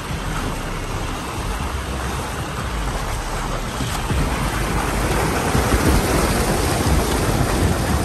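Fast-flowing, flood-swollen river rushing, a steady wash of water noise that grows louder about halfway through, with wind buffeting the microphone.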